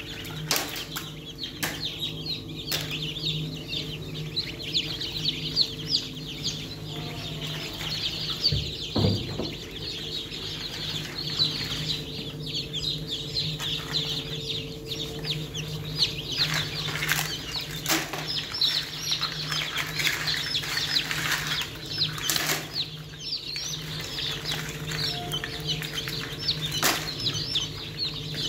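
A crowd of newly hatched chicks peeping continuously, many short high chirps overlapping, over a steady low hum. A few sharp knocks are scattered through it.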